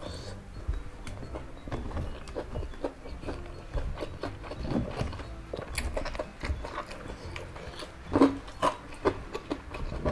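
Close-up mukbang eating sounds: chewing of rice and crispy nuggets with sambal, with many small wet mouth clicks and lip smacks at an irregular pace. One louder mouth sound about eight seconds in.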